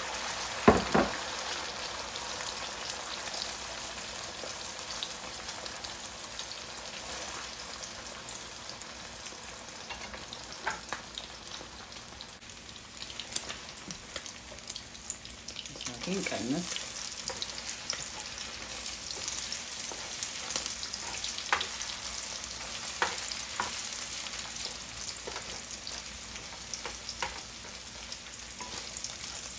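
Eggs with chopped tomato and avocado sizzling steadily in hot oil in a nonstick frying pan, with a wooden spatula stirring and scraping at times. A sharp knock about a second in.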